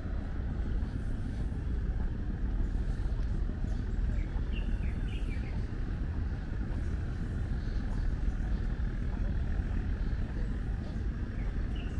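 Outdoor city ambience: a steady low rumble of distant traffic, with a few brief high chirps about four and a half seconds in and again near the end.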